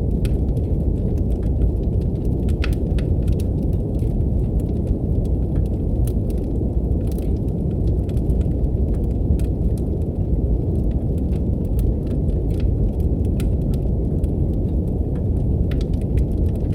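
Steady brown noise, a deep even rumble, mixed with a wood fire crackling in a fireplace, with irregular sharp pops and snaps several times a second.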